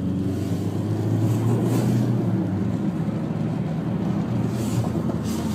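Cars driving at speed: a steady low engine drone with road noise, and a few faint wind gusts on the microphone.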